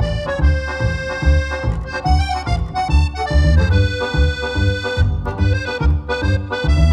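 Background music led by an accordion-like melody over a steady beat.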